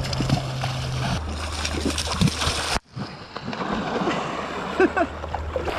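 Water splashing in shallow seawater as a person runs through it and a bodyboard hits the surface, close to the camera at the waterline. About three seconds in, the sound drops out abruptly for a moment and then carries on with a different, wetter wash.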